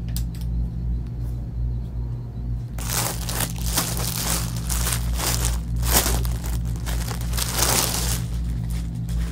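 Plastic garment bags crinkling as packaged clothes are handled and lifted from a stack. The crinkling starts about three seconds in and goes on for about five seconds, over a steady low hum.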